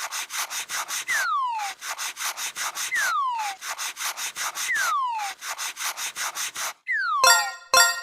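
Cartoon sound effect on a loop: a whistle sliding down in pitch, followed by about a second of rapid rasping strokes, repeated four times. Two short bright ringing hits come near the end.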